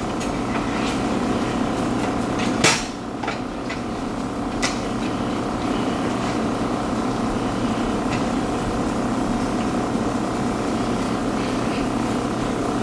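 A steady whirring hum like a fan running, with one sharp knock about two and a half seconds in and a lighter click a couple of seconds later.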